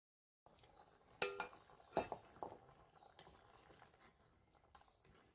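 A metal bowl used as a lid on a clay cooking pot clanks twice with brief ringing as it is lifted off and set down, then a ladle knocks lightly against the pot a few times as the curry is stirred.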